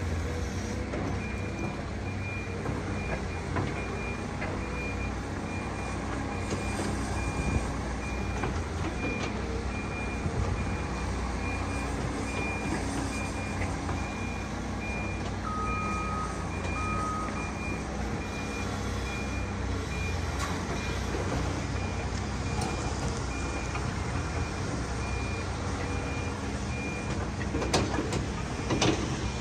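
Excavator's diesel engine running steadily under a reversing alarm that beeps at an even pace, with a few sharp knocks near the end.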